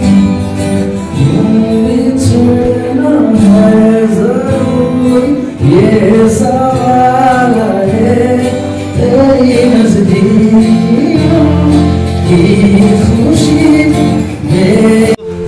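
A man singing a song to his own acoustic guitar accompaniment into a microphone, the voice rising and falling over strummed chords; it cuts off abruptly near the end.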